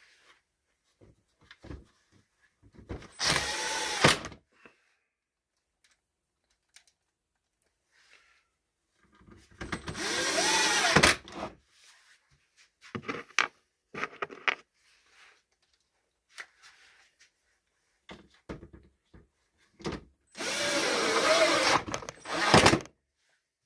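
Small battery-powered motor run in three short bursts, each spinning up and winding back down, with light clicks and handling knocks in between.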